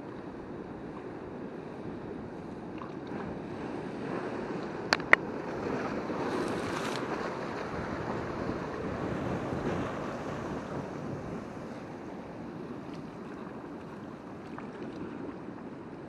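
Sea surf washing over a rocky shore, a steady rushing wash that swells for a few seconds in the middle. Two sharp clicks close together about five seconds in stand out as the loudest sounds.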